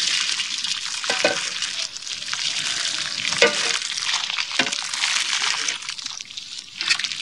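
Dense wet scraping and rustling as a knife scrapes the feathers off a scalded bird carcass in a metal basin of water, with a few short sharper strokes.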